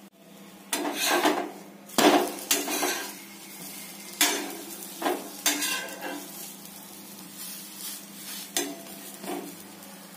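Steel spatula scraping and clinking on a tawa in a series of irregular strokes as a bread omelet is folded over on it, with egg frying faintly underneath.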